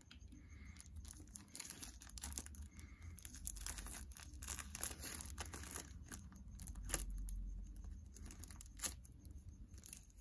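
Scissors cutting open a clear plastic sleeve, the plastic crinkling and tearing, with irregular sharp snips and crackles throughout.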